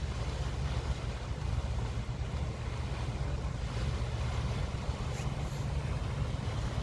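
Diesel engine of a loaded inland motor cargo barge running with a steady low drone.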